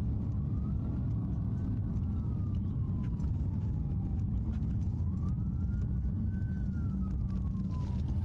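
Police patrol car in pursuit: a steady low engine and road rumble, with a fainter siren wail slowly rising and falling twice.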